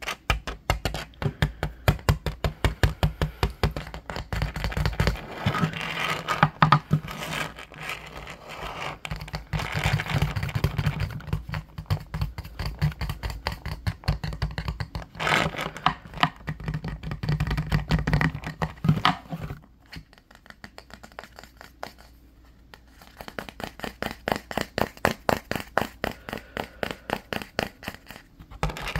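Fingertips and nails tapping and scratching rapidly on the wooden back of a bamboo paddle hairbrush: fast flurries of small clicks, which drop much quieter for a few seconds in the latter half.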